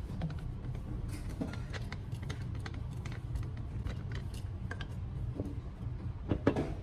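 Irregular light clinks and taps of small hard objects being handled, with a cluster of louder knocks near the end, over a steady low hum.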